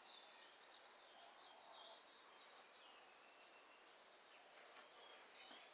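Near silence: faint room tone with a steady high-pitched whine and scattered faint bird chirps coming through open louvered windows.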